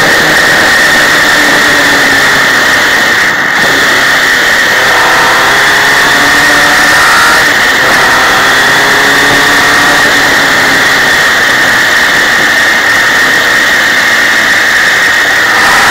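Motorcycle sidecar outfit's engine running at road speed, its pitch rising and falling with the throttle, under loud wind rush on the onboard microphone. A steady high whine runs throughout.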